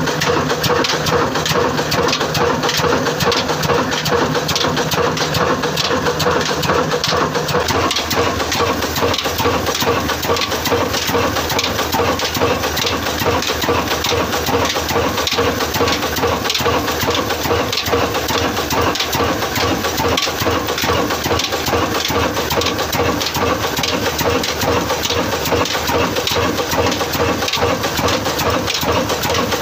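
Old Ruston Hornsby horizontal single-cylinder diesel engine running steadily, its big flywheel spinning, with an even, rapid, repeating beat.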